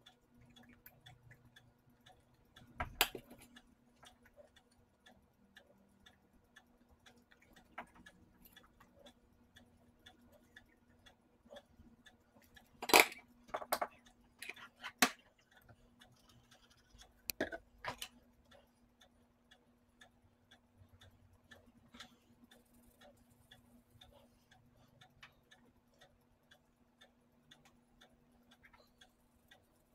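Sparse clicks and taps from hands and small tools handling a circuit board on a workbench, over a faint steady hum. The loudest clicks come about three seconds in and in a cluster later on.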